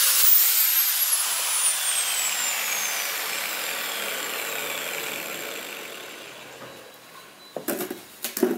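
Angle grinder with a sanding disc winding down after being switched off: its high whine falls steadily in pitch and fades over several seconds. A few sharp knocks and clatter come near the end.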